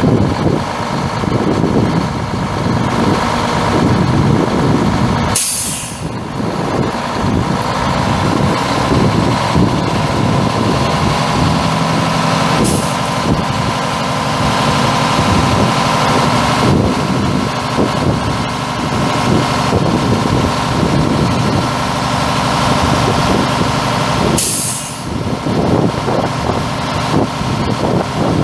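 Mack E7 12.0-litre inline-six turbo diesel of a heavy truck running steadily, with a steady high whine over the engine. Sharp hisses of released air cut in about five seconds in, more faintly around the middle, and again near the end.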